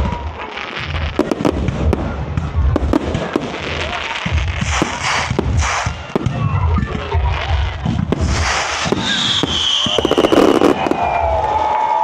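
Aerial fireworks shells going off in quick succession, a string of sharp booms with bursts of crackling stars between them.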